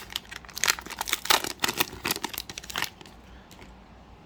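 Wrapper of a Panini Score football card pack crinkling and tearing as it is opened, in quick crackly rustles that stop about three seconds in.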